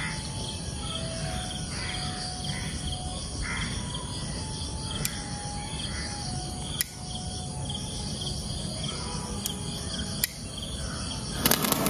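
Crickets chirring steadily, with short whistled notes and a few sharp clicks. Near the end a homemade colour sparkler catches and starts spraying with a loud crackling hiss.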